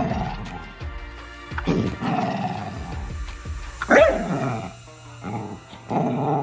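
A dog growling and giving short barks, several in a row, the loudest a sharp falling bark about four seconds in, over background music.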